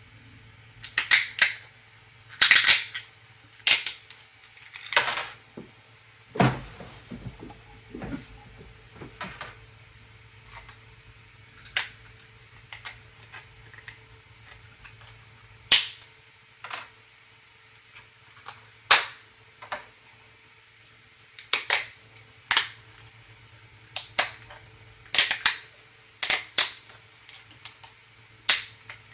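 3D-printed PLA plastic pieces worked by hand, giving sharp cracks and snaps one after another, often in quick pairs, every second or so. A longer crunch comes about six seconds in, over a faint steady hum.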